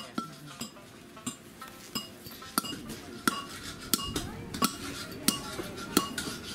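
Stones being pounded inside a tube with a hand-held rod, about ten sharp clinking strikes in a steady rhythm of roughly one every two thirds of a second, each with a brief ring. The stones are being crushed into powder for pigment to paint the rebuilt castle.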